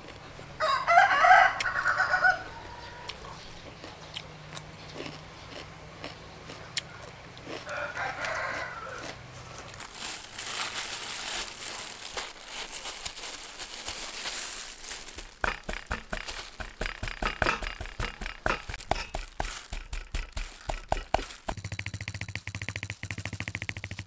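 A rooster crows loudly about a second in, and crows again more faintly around eight seconds. Later there is a stretch of hiss and then a run of clicks. Near the end a fork pierces raw pork neck on a wooden board in fast, even taps.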